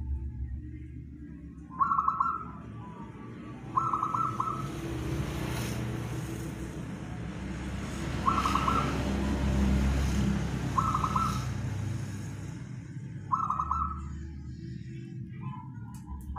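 Zebra dove (perkutut) cooing: short trilled coos repeated every two to three seconds, over a steady low rumble that swells in the middle.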